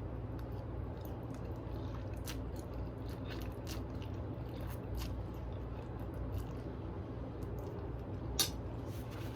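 A person chewing and eating with mouth clicks, a louder click near the end, over a steady low hum.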